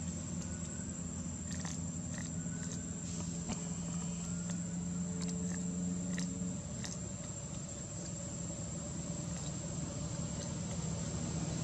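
Outdoor ambience: a steady high-pitched insect drone over a low, steady hum like a distant engine or traffic. A few sharp clicks in the first half.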